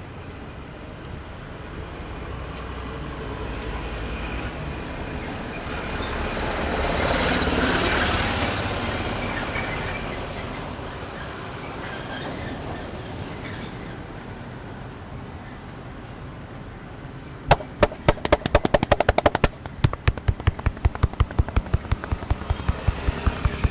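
A passing vehicle swells and fades in the street noise during the first half. Then, about three-quarters of the way in, rapid rhythmic hand slaps start, roughly five a second: a barber's palms drumming on a client's head and back in a tapping massage.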